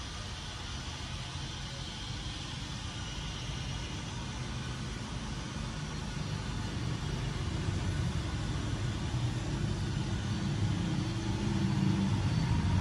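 Road traffic rumbling, a vehicle's engine growing steadily louder through the second half.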